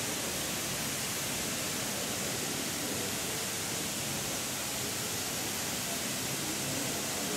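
Sprinkler installation spraying a fine water mist, a steady, even hiss.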